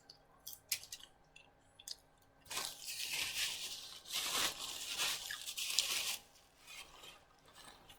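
Crinkling and crackling of paper handled close to the microphone, in three stretches of about a second each, after a few light clicks.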